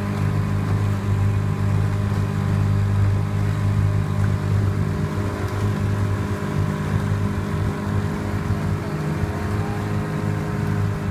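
Outboard motor of a coaching launch running at a steady cruising speed, a low even hum.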